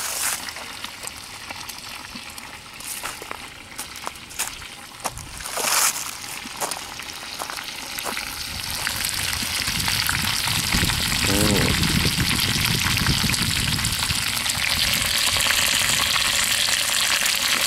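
Pork fat sizzling as it renders in a cast iron kettle over a wood fire, with scattered sharp pops in the first half. About halfway through the sizzle grows louder and turns into a dense, steady hiss.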